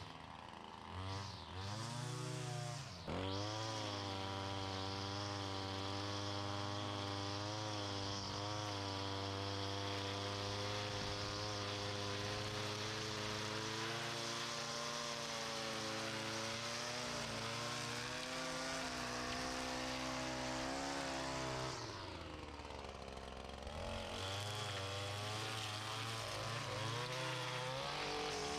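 Small engine of gas-powered lawn equipment running at high throttle. It revs up about three seconds in, eases off briefly about twenty-two seconds in, then picks up again.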